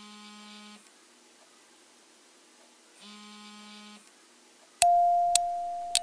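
An alarm buzzing, two pulses of about a second each, three seconds apart, a wake-up signal. Near the end a sudden loud note starts and rings on, with a few sharp clicks over it.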